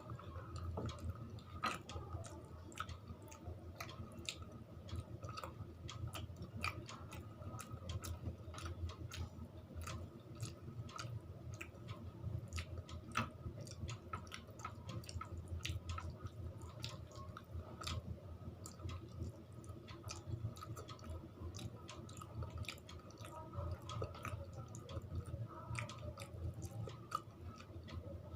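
Close-up chewing and mouth sounds of someone eating rice with fish curry and dal: a continuous run of small wet clicks and smacks over a low steady hum.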